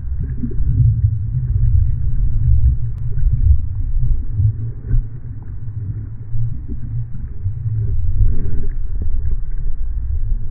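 Low, muffled rumble of waves and water surging, heard from underwater, swelling and easing without a break.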